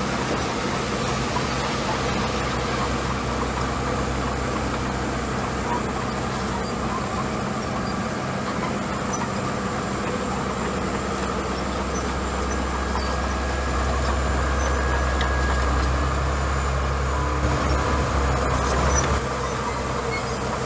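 Small crawler bulldozer's diesel engine running steadily as it pushes and spreads gravel; its low rumble grows heavier for several seconds near the end.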